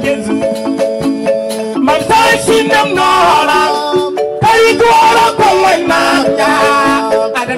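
Live band music through a PA system: electric keyboard and drums with a rhythmic beat, and a man singing into a microphone over them.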